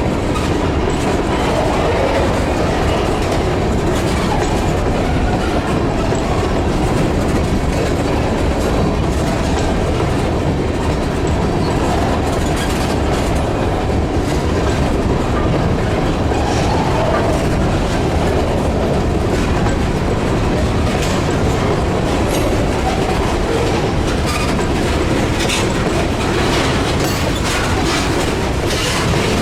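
Freight cars of a long train rolling past with a steady rumble, the wheels clicking over rail joints, the clicks coming more often in the last few seconds.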